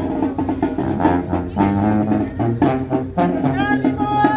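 Brass band playing dance music, trumpets, trombones and saxophones together over a bass line; near the end the band lands on a long held note.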